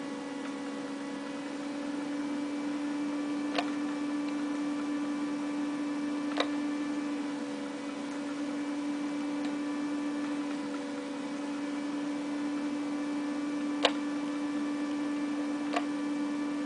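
Steady electrical hum, with four short sharp clicks spread through it.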